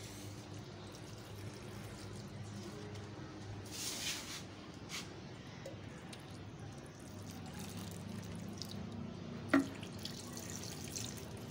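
Water poured from a container onto the soil of potted plants, a faint trickling and dripping, with a brief louder pour about four seconds in and a short knock near the end.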